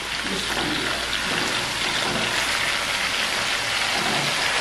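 Whole marinated chicken frying in hot oil in a pot, sizzling with a steady hiss.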